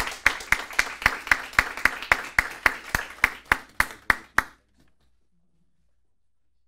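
Audience clapping, with sharp, even claps about four a second standing out. It stops about four and a half seconds in.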